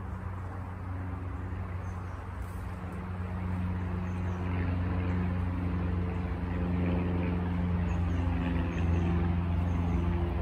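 Honeybees buzzing around an open hive, a steady hum with several wavering tones that grows louder toward the end.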